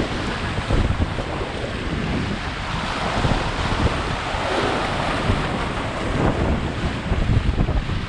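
Strong wind buffeting the microphone over surf breaking on the shore, a loud, gusting rumble with a hiss of waves.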